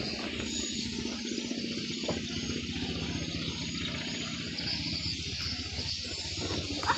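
Car engine driving a katinting longtail boat, running steadily under way, with the hiss of rushing water and wind over it. A short sharp knock near the end.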